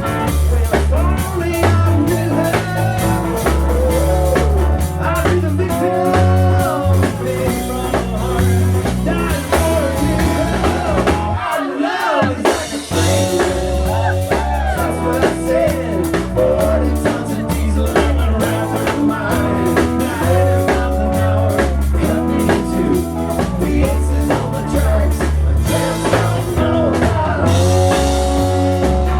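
Rock band playing a blues-rock song with drums, bass and guitar. The low end and the beat drop out for a moment about twelve seconds in, then the band comes back in.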